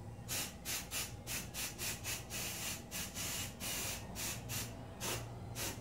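Aerosol can of PetPaint dog hair colour spraying in short hissing bursts, about three or four a second, with a couple held a little longer.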